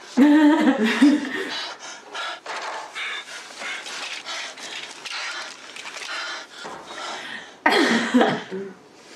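A loud vocal cry opens it, followed by a run of rapid, heavy panting breaths. A woman bursts out laughing near the end.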